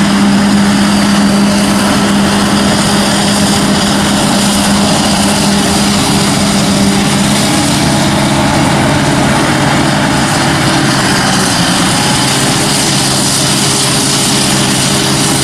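Heavy diesel engine of farm machinery running steadily under load, its pitch dropping noticeably about seven seconds in as the revs change.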